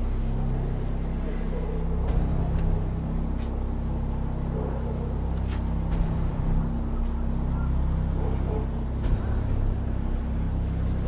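A steady low rumbling drone, with a few faint short clicks over it.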